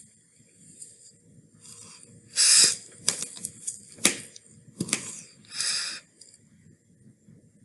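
Short hissing rushes of air, about three seconds apart, with light sharp clicks and taps between them.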